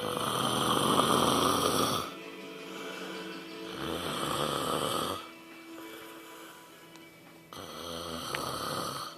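Snoring: three long snores, each one and a half to two seconds, spaced about four seconds apart, over steady background music.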